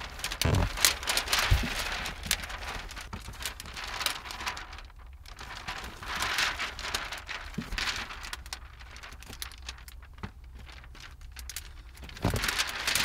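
Large sheet of wet window tint film crinkling and crackling as it is handled and slid into place against the inside of a car's rear window. There are two thumps in the first two seconds.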